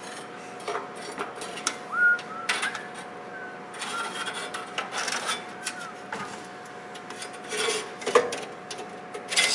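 Steel bandsaw blade being worked by hand onto the wheels of a horizontal metal-cutting bandsaw: irregular scraping, rubbing and clicking of the blade against the wheels and housing, with a few short squeaks.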